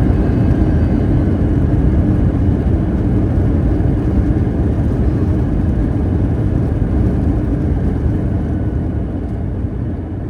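Cabin noise of an Airbus A321 on its landing rollout: a loud, steady engine roar and rumble, with reverse thrust on a wet runway, slowly getting quieter as the aircraft slows.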